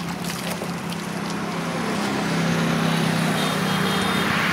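A motor vehicle passing on the road: a steady engine hum that grows louder through the second half as it comes closer.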